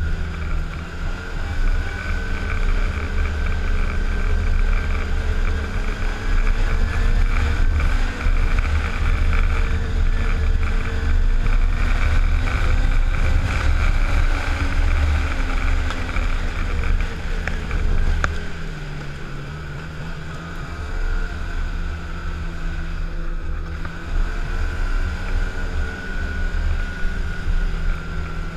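Arctic Cat snowmobile engine running under way along a trail, with wind buffeting the microphone. The engine eases off about two-thirds of the way through, then picks back up.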